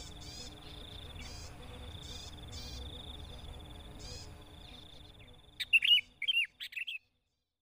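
Sooty-headed bulbul calling: a steady high buzzy trill with short chirps repeating about every half second. Then, about five and a half seconds in, a few loud, clear rising-and-falling call notes, after which the sound cuts off.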